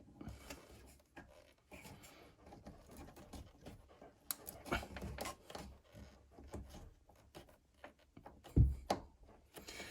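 Hands rubbing, scraping and clicking on plastic parts inside a washing machine as the loose pressure hose is pushed back onto the water level sensor, with a heavier thump near the end.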